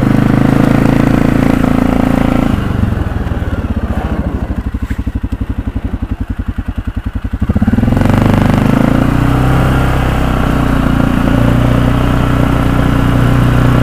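Suzuki KingQuad 700 ATV's single-cylinder four-stroke engine running under throttle, then dropping to idle a few seconds in, its separate firing beats audible. It picks back up about five seconds later and runs steadily again.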